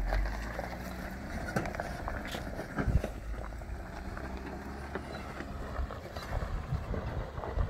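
Jeep Wrangler engine running at low speed under load as it crawls up a rocky slope, with tyres crunching and rocks clicking underneath, and a sharper crack about three seconds in. Wind buffets the microphone throughout.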